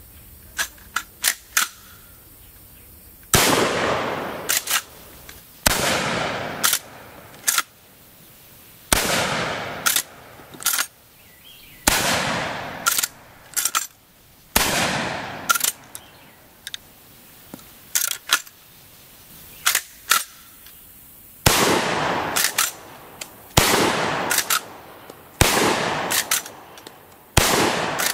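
A Chiappa 1887 T-Series lever-action 12-gauge shotgun fired about nine times, a few seconds apart, each shot ringing out for about a second. Between the shots come short sharp clacks of the lever being worked to cycle the action, with a longer pause between shots near the middle.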